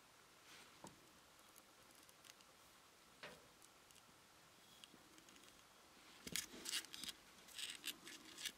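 Near silence with faint, scattered small clicks and taps from a fine paintbrush and a plastic model car grille being handled, a paint pot among them. The clicks come thicker over the last two seconds.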